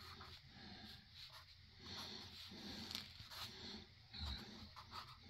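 Faint pencil strokes scratching on paper as a line sketch is drawn.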